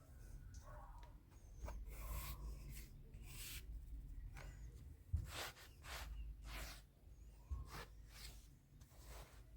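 Repeated short scraping strokes, about one a second, over a low steady rumble, as from a utensil working against a mixing bowl during cake-making.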